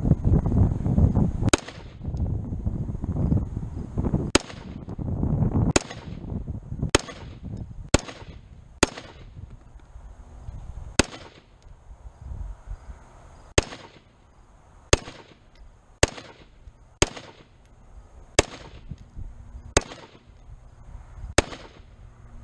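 Springfield Saint Edge AR-15 semi-automatic rifle firing 5.56 ammunition: about fourteen single shots of slow aimed fire, one every second or two. Each shot feeds and fires cleanly.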